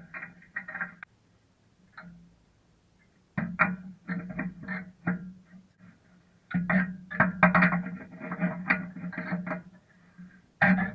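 Background music led by guitar, coming in short phrases with brief pauses between them.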